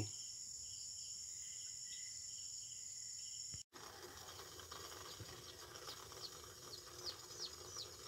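Faint background of steady, high insect trilling; after a brief dropout, a bird gives a run of short, quickly falling chirps.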